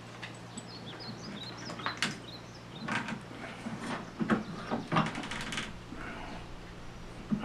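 Metal hand tools clinking, knocking and scraping at a workbench, with a quick run of small clicks about five seconds in, over a steady low hum.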